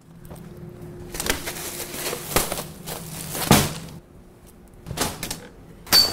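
Clothes being pulled out of a closet and flung down: rustling fabric with about five sharp knocks and clatters, the loudest near the middle and at the end, over a faint steady hum.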